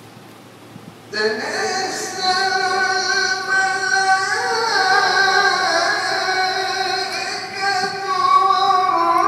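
A qari's unaccompanied Arabic chant through a microphone, starting about a second in: one man's voice in long, ornamented held notes that glide between pitches.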